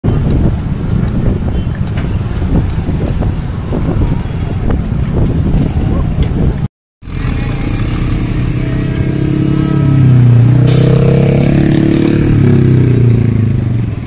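A dump truck's diesel engine running while it tips its load of soil, a low rumble with scattered knocks at first, then revving up about two-thirds of the way in and holding high. The sound cuts out briefly about halfway through.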